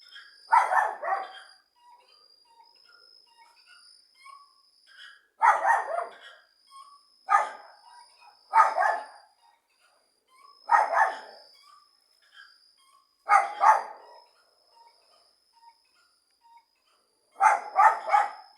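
Dog barking: short groups of one to three barks every couple of seconds, with three quick barks near the end. Under the barks there is a steady high thin tone and faint small chirps.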